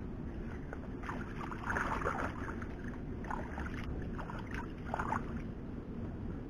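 Hands splashing and sloshing in a shallow pool of muddy water, in three bouts, the first and longest the loudest, over a steady low rumble.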